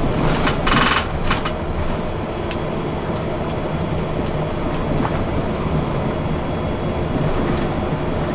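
Bus on the move: steady engine and road rumble, with a brief high-pitched burst about a second in.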